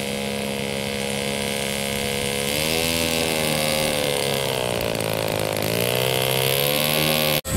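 Engine and propeller of a radio-controlled scale Messerschmitt Bf 109 model running on its ground roll across grass. It holds a steady pitch, rises about two and a half seconds in, dips, then climbs again, and cuts off suddenly near the end.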